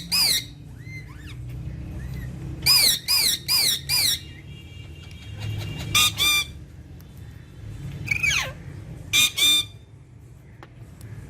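Alexandrine parakeets giving loud, harsh screeching calls in quick groups: a run of four, then a pair, a single gliding call and another pair. A steady low hum runs underneath.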